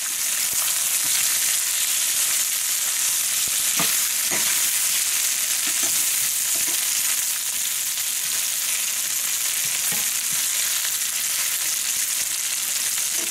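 Cornmeal-coated yellow crookneck squash slices sizzling steadily in hot oil in a stainless skillet, with a metal spatula scraping and turning them a few times.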